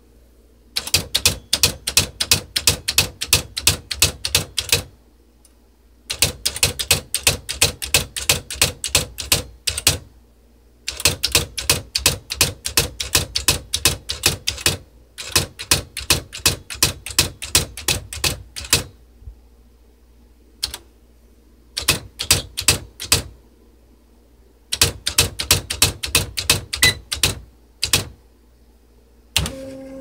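Smith Corona PWP 3 electronic typewriter's daisywheel print mechanism striking characters onto paper: rapid strikes, several a second, in runs of a few seconds with short pauses between lines. A brief motor hum comes at the very end.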